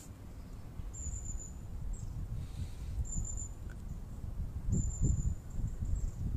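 Outdoor ambience picked up by a phone microphone: a low rumble with three or four short, high, thin chirps about a second or two apart.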